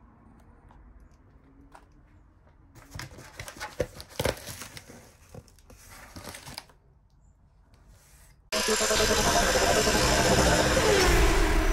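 Cardboard box and plastic-wrapped sound-deadening roll being handled, with irregular crinkling and rustling for a few seconds. About three-quarters of the way through, a loud intro sound effect cuts in suddenly and carries on to the end.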